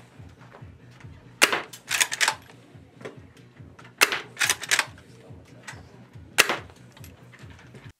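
Green-gas Model 1892 lever-action airsoft rifle fired three times, about two and a half seconds apart, each a sharp crack. After each of the first two shots comes a quick run of metallic clacks as the lever is worked to cock the hammer and chamber the next BB.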